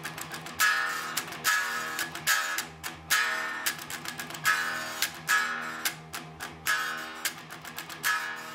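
Electric guitar riffs: picked notes with sharp attacks and hard accented hits about once a second.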